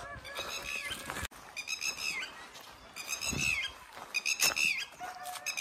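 An animal's short, high-pitched squeaky calls, repeating a little over a second apart, each dropping in pitch at its end.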